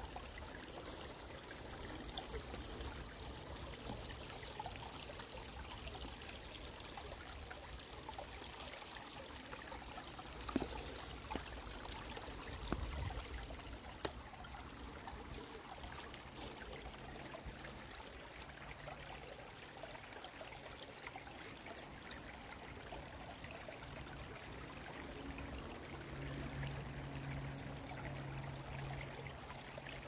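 Shallow creek water trickling and babbling over stones, steady throughout. A few faint knocks come about ten to fourteen seconds in.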